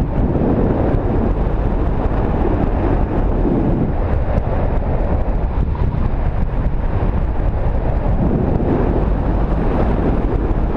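Wind rushing over the microphone, a loud steady rumble with no breaks.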